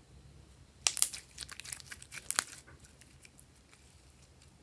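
Blue glitter slime crackling and popping as hands stretch and squeeze it: a dense run of sticky clicks starting about a second in and lasting under two seconds, then a few faint clicks.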